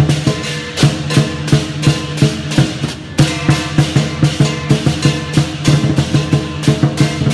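Lion dance percussion: drum with crashing cymbals and a ringing gong, struck in a steady rhythm of about three beats a second.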